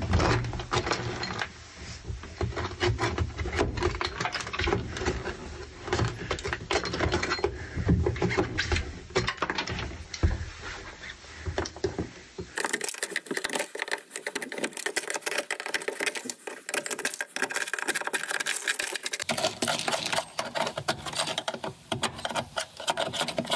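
A hand scraper scraping and chipping sound deadening, frozen brittle with dry ice, off a car's bare steel floor pan: dense rapid scratching and clicking as pieces crack away, with dry ice pellets rattling on the metal.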